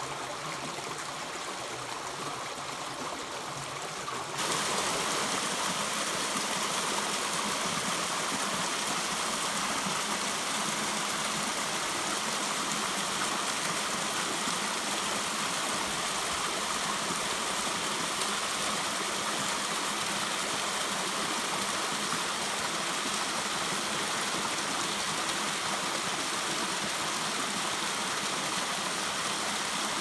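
Mountain river flowing over rocks, a steady rush of water that becomes suddenly louder and brighter about four seconds in.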